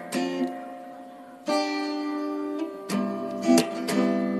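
Background guitar music: chords struck about every second or so and left to ring.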